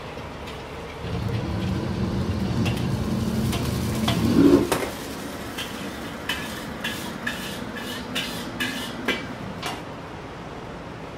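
Carbon-steel wok on a wok burner: a loud low rush for about four seconds that swells briefly and stops, then a run of sharp metallic clanks and taps from the wok and ladle, a little under two a second.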